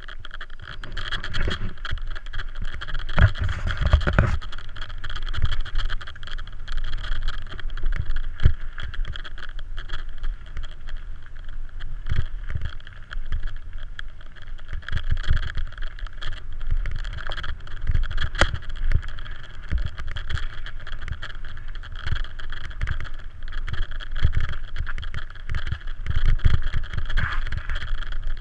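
Mountain bike riding down a gravel trail, recorded from a helmet camera: steady rumble of tyres on loose stones and wind on the microphone, with frequent rattles and knocks from the bike over bumps, a few heavier jolts in the first ten seconds.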